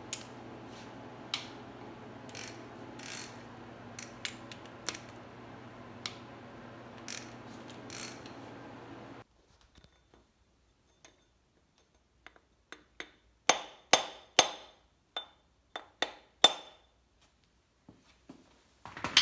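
Sharp metallic hammer strikes on a brass drift held against a connecting-rod cap of a Ford 5.0 V8 block, about a dozen ringing taps in quick succession through the second half, to knock the cap and piston loose. Before that, a few ratchet clicks on the rod cap nuts over a steady hum.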